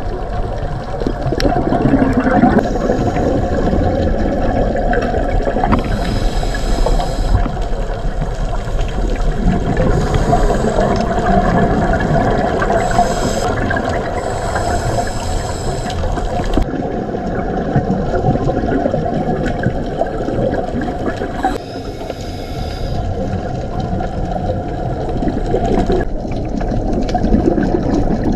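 Underwater sound picked up by a diving camera in its housing: a steady rushing, gurgling wash of water noise, changing abruptly a couple of times.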